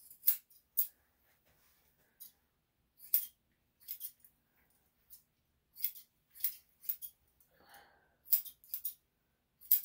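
Grooming scissors snipping a puppy's hair: about fifteen short, sharp snips at uneven intervals.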